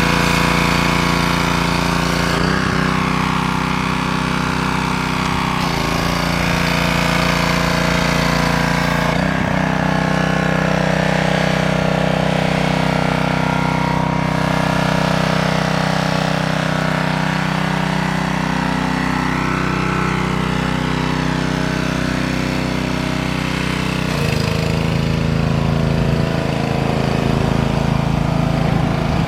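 Gas-powered pressure washer engine running steadily at close range, its note shifting a few times as the spray load changes.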